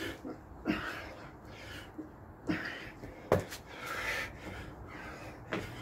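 A man breathing hard and panting through a set of burpees, with a few sharp thuds of hands and feet landing on patio paving slabs, the loudest a little past the middle.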